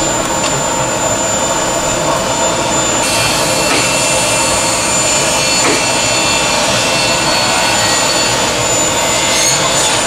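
Loud, steady machine noise: a constant hum with several steady tones and a hiss on top. A brighter, higher hiss joins about three seconds in and lasts to the end.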